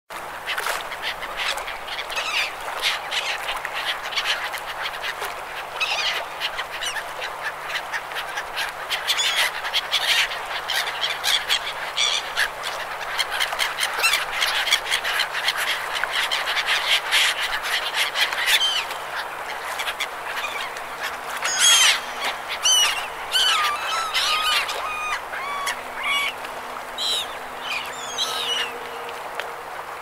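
A flock of seagulls calling, many overlapping squawks and cries in a dense chorus. From about twenty seconds in, single calls stand out more clearly.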